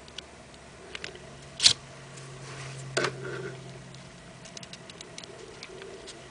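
Small clicks and taps of hands working a mini hot glue gun and pressing small pieces onto a paper journal page, with a sharp click just under two seconds in and another about three seconds in. A faint low hum is heard through the middle.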